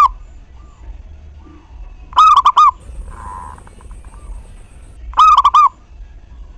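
Zebra dove (perkutut) cooing its song: a phrase of about four quick, pitched coos, repeated about every three seconds, twice in full.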